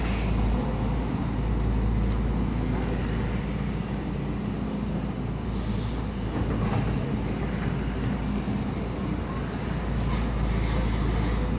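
Heavy construction machine's diesel engine running steadily with a deep, even drone. A few faint knocks come through around the middle.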